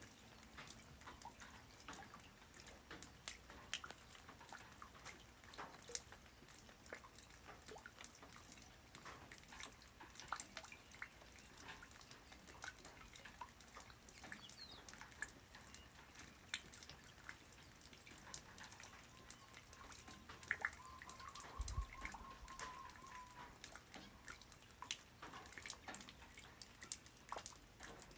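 Light rain falling on the ground: a faint steady patter with many scattered individual drops ticking. A faint, slightly wavering tone lasts a few seconds past the middle, and a single low thump comes about three-quarters of the way through.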